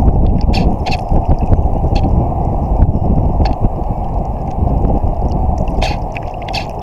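Wind and water noise picked up by a camera mounted on the deck of an IOM (International One Metre) model yacht under sail: a loud, muffled low rumble with scattered sharp ticks.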